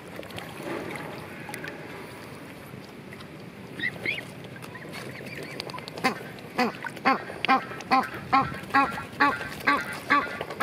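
A duck quacking in a steady, even series, a little over two quacks a second, starting about six seconds in.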